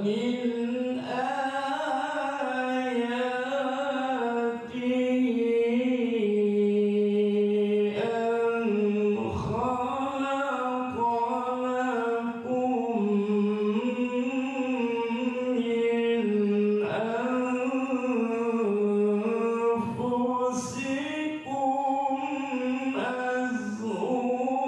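A solo male voice chanting into a microphone in a long, melismatic melody, holding drawn-out, ornamented notes with short breaks between phrases.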